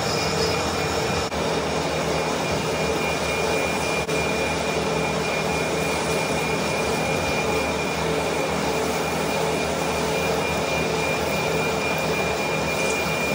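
Manual metal lathe running steadily, with a steady high tone over its broad running noise.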